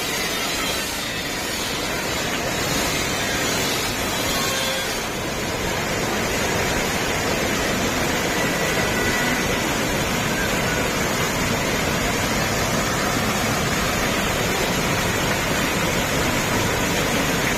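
Gadgada waterfall: a steady, unbroken rush of falling water.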